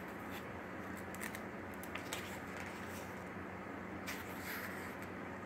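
Faint handling noise of a paper guidebook held open: a few soft ticks and rustles of fingers on the pages over a steady low room hum.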